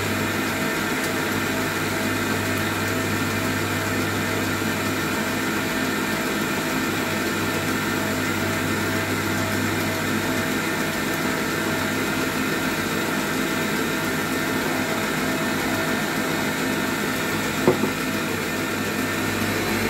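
Oster stand mixer running steadily at medium-high speed, its beater whipping batter in a stainless steel bowl. A single brief knock sounds near the end.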